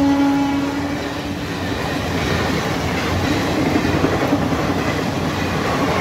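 Passenger train's coaches running past a level crossing, a continuous rumble with wheels clattering over the rails. The locomotive's horn holds one steady note that stops about a second in.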